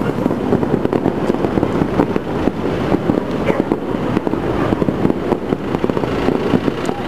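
Fireworks going off in a dense, continuous barrage of rapid pops and bangs.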